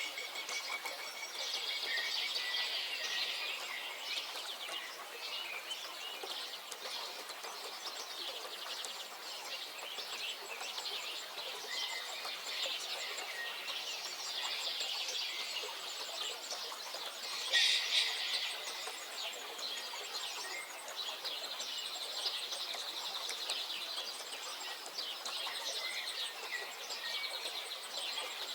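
Several wild birds singing and chirping at once, with a steady mix of short calls and trills and one louder call about eighteen seconds in.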